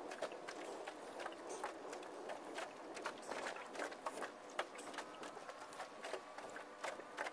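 Irregular small clicks and rustles of a nylon trammel net being hauled in and picked over by hand, a small spider crab being worked loose from the mesh, over a steady background hiss.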